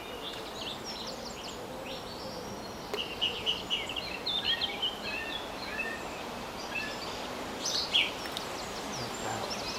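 Small songbirds chirping and singing in quick clusters of short high notes, busiest in the middle and again near the end, over a steady background hiss of the outdoors.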